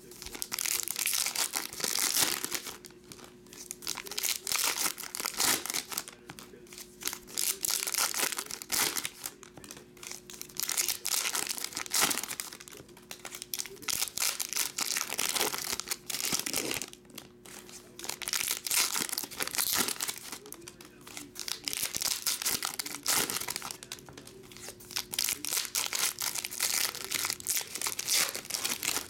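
Foil trading-card pack wrappers being torn open and crinkled by hand, in repeated crackling bursts with short pauses between packs.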